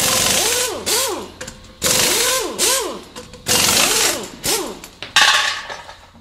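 Logo-animation sound effects: four synthesized whooshes that start suddenly, about a second and a half apart and fade after each start, each carrying rising-and-falling tones. The last one is brighter.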